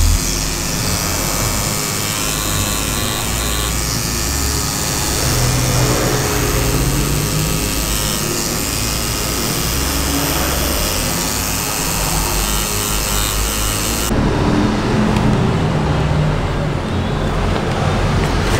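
Rotary tattoo machine buzzing steadily as it works ink into skin, under background music. The high buzz cuts off abruptly about fourteen seconds in, leaving the music.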